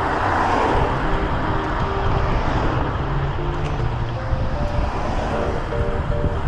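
Steady rushing wind and movement noise, with faint background music playing a simple stepped melody over it.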